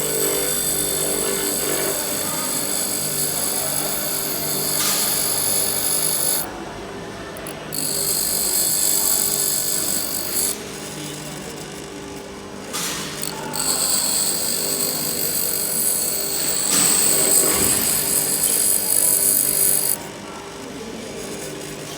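Pedestal grinder running while a drill bit is ground against the wheel in three spells, the high grinding sound dropping away in the short gaps as the bit is lifted off.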